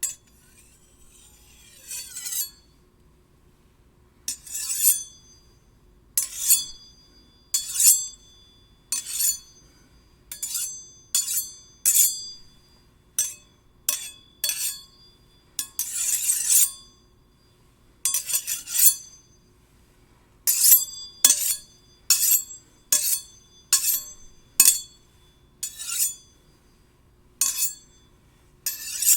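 Steel blades clinking and sliding against one another in a long, irregular series of strikes, about one or two a second, each leaving a bright high ring; a few strokes are drawn-out scrapes that swell and fade.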